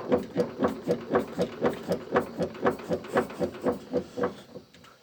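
A removed 2013 Chevrolet Spin shock absorber assembly is shaken by hand and knocks about four times a second, stopping about four and a half seconds in. The knock comes from play between the shock's top nut and its worn mount bushing (coxim). This is the loose-underneath clunk the car makes on the move.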